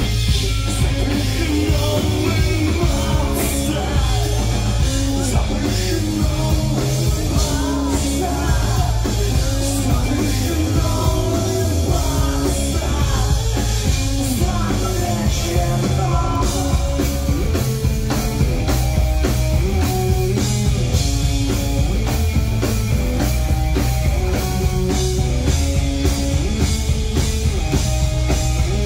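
Pop-punk band playing live and loud: drum kit, electric guitars and bass, with singing.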